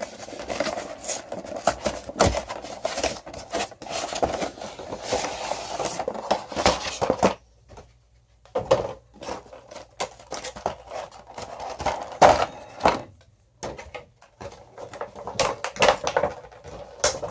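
A cardboard collection box being opened and its packaging handled: bursts of rustling and scraping with many short clicks and knocks, broken by a couple of brief pauses.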